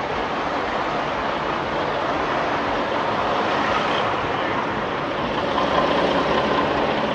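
A steady engine drone, swelling a little louder near the end.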